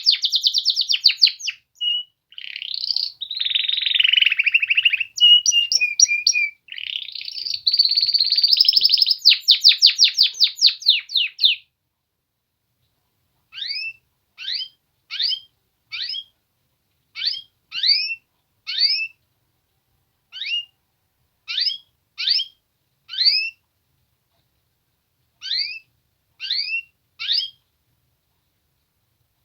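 Male domestic canaries singing: a continuous run of fast trills and rolling phrases for about the first twelve seconds, then short, separate upswept chirps repeated in small groups with pauses between them.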